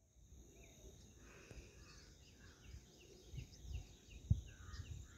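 Faint open-country ambience: a steady high-pitched insect drone, with a bird giving a quick run of short repeated chirps over it. Low rumble underneath, with one brief thump about four seconds in.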